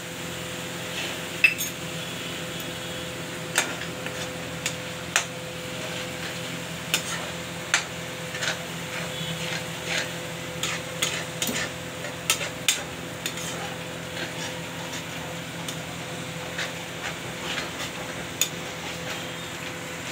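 Metal spoon stirring and scraping thick tomato masala in a steel kadai, with irregular sharp clicks and taps of the spoon against the pan, over a faint steady hum.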